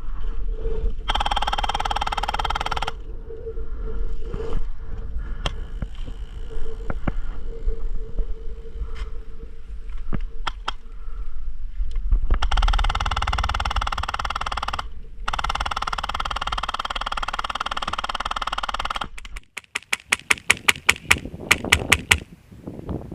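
Wind buffeting the microphone, with two long stretches of rapid automatic fire from airsoft electric guns. Near the end the wind drops away and about fifteen sharp shots follow at roughly five or six a second.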